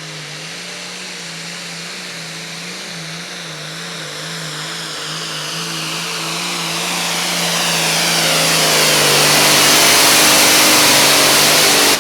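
Super Farm class diesel pulling tractor running at full throttle on a pull, its engine note holding steady as it grows steadily louder, with a rising hiss. The sound cuts off abruptly at the end.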